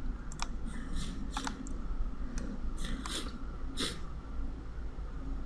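A handful of short, separate computer-mouse clicks as browser tabs and pages are switched, over a steady low hum.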